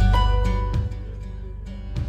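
Background music, dipping in level for about a second in the middle.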